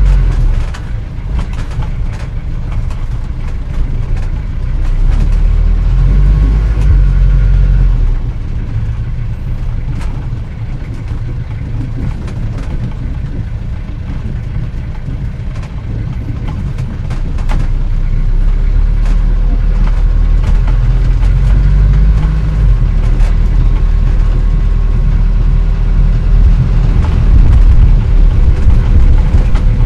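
A 1940s antique car driving, its engine running with a deep sound that swells about five seconds in, eases back about eight seconds in, and builds again from about eighteen seconds, as if accelerating.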